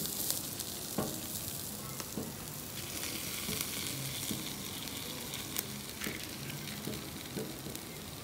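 Chicken pieces sizzling steadily on a wire grate over a charcoal fire, with a few light clicks as metal tongs touch the meat and grate.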